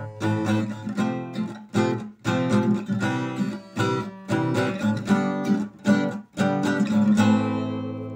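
Acoustic guitar strumming chords in a steady rhythm, then a final chord left to ring out and fade near the end.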